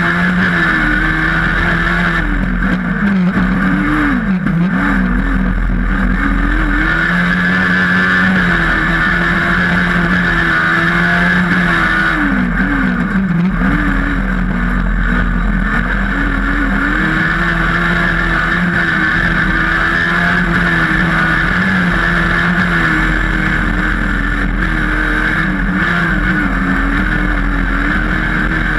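Racing buggy engine heard from the cockpit, running hard at high revs. The pitch drops and climbs again several times as the driver lifts off and gets back on the throttle.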